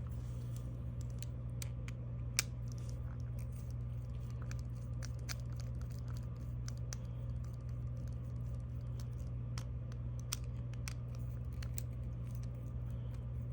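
Small metallic clicks and taps from handling a GOAL padlock and lock-picking tools, irregular throughout, with a sharper click about two and a half seconds in and another about ten seconds in, over a steady low hum.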